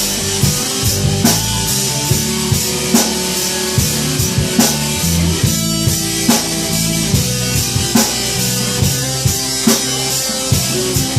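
A rock band playing an instrumental passage: drum kit keeping a steady beat, with electric guitar and bass, no vocals.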